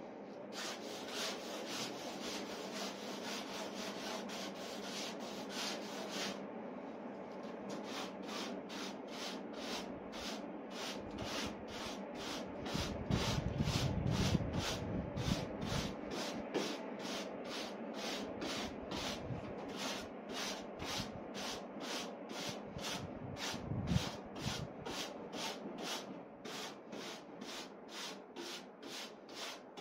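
Rhythmic rubbing strokes worked back and forth over a wooden board, about two strokes a second, with a few dull low thuds partway through.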